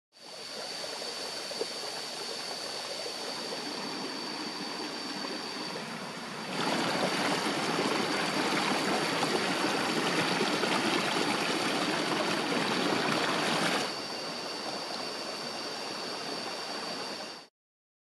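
Flowing river water rushing and splashing, louder from about six seconds in until a few seconds before the end, with a steady high-pitched tone underneath. The sound cuts off just before the end.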